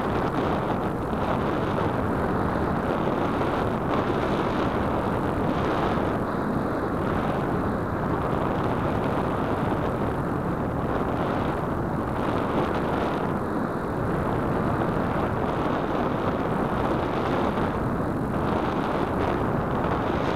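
Steady rush of airflow over the small onboard camera's microphone on an RC glider in flight, an even noise with no motor whine in it.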